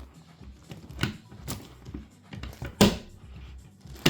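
Layers of an 11x11x11 Rubik's cube being turned by hand: a few sharp plastic clacks among quieter clicking, the loudest about three seconds in.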